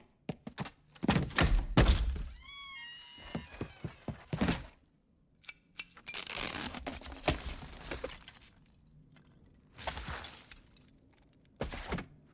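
Animated-film sound effects with no dialogue or music. A string of sharp knocks and thuds comes first, with a short run of high ringing tones about two and a half seconds in. A long, noisy crash with breaking and shattering follows from about six seconds, and shorter bursts of the same noise come near the end.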